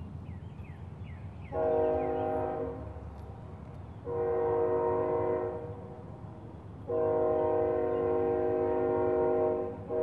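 Train horn sounding a chord of several steady tones in three blasts, the third the longest, with another starting near the end, over a steady low rumble of the passing train.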